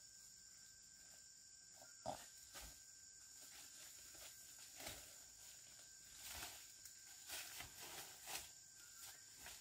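Footsteps crunching through dry leaf litter and brushing through undergrowth, irregular, with a sharp crack about two seconds in. Insects, crickets among them, keep up a steady high buzz behind.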